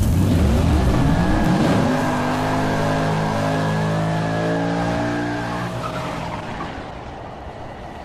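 Car engine sound effect: the engine revs up with a rising pitch, then holds a steady high note as it fades out.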